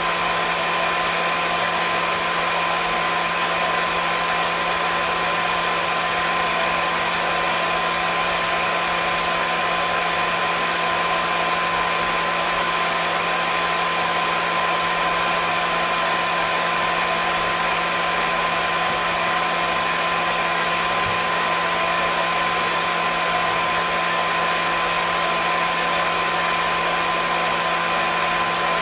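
Hair dryer running steadily: an even, unchanging rush of air with a constant motor hum and whine under it.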